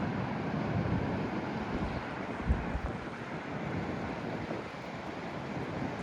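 Sea waves washing in under strong, gusty wind, with wind buffeting the microphone. A brief low thump of wind on the microphone about two and a half seconds in is the loudest moment.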